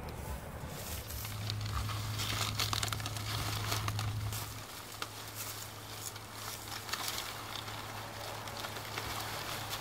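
Dry straw and long green leaves rustling, crackling and tearing as they are handled and gathered into a bundle by hand. A low steady hum runs beneath it for the first few seconds.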